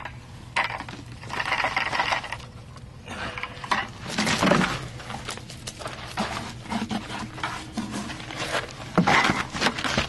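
Wet refractory mud being scooped by hand from a bucket and smeared and smoothed over a metal wheel rim: irregular bouts of scraping and rubbing.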